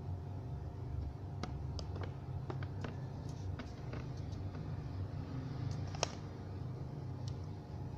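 Scattered light clicks and taps of laptop parts being handled, with one sharper click about six seconds in, over a steady low hum.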